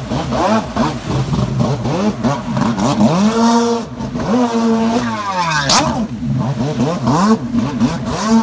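Kawasaki 550 stand-up jet ski's two-stroke twin engine revving up and down in quick bursts as it is thrown through freestyle turns. It holds a couple of longer high revs near the middle, then drops off about five seconds in before picking up again.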